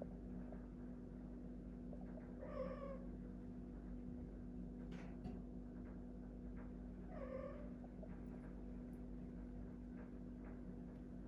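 A domestic cat giving two short, pitched meows about five seconds apart, over a steady low hum.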